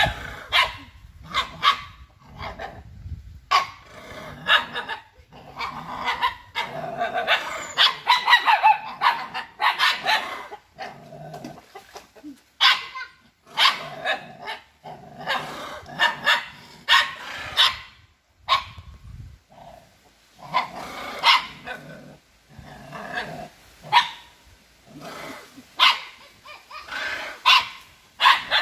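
Dogs barking at a monkey, again and again, in irregular runs of sharp barks. The barking is busiest about a third of the way in and pauses briefly just past the middle.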